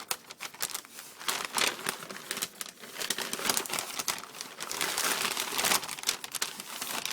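Shipping package being opened by hand, its wrapping rustling and tearing in a quick, uneven run of sounds.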